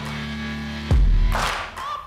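Background music with a heavy beat: held low notes, then a deep bass hit about a second in followed by a sharp, noisy drum hit.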